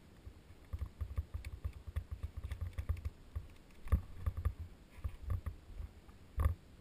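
Caving rope gear being handled on a tyrolean traverse: gloved hands working rope and carabiners, with scattered small clicks and two sharper knocks, one about four seconds in and one near the end, over low rumbling movement noise.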